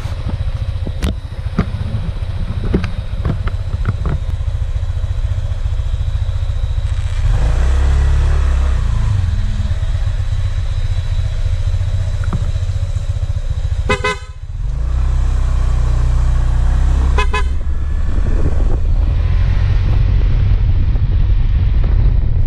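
Honda ADV 150 scooter's single-cylinder engine running and pulling away, its low drone rising in steps as it speeds up. Two short horn toots come about two-thirds of the way through, a few seconds apart.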